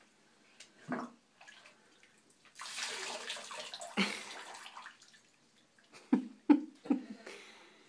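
Bath water poured from a plastic cup over a child's head in a bathtub, a splashing pour lasting about a second and a half. A few short splashes follow near the end.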